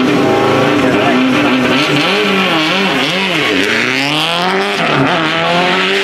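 Subaru Impreza WRC rally car's turbocharged flat-four engine, running steadily for about two seconds and then revved up and down several times in quick succession, with one bigger rise and fall in pitch around the middle and more revving near the end.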